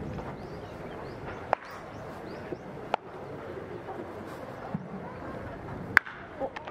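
Several sharp, isolated cracks of baseballs at practice, the loudest about six seconds in, over a low murmur of voices with birds chirping.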